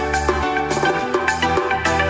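Music with a steady drum beat and a bass line.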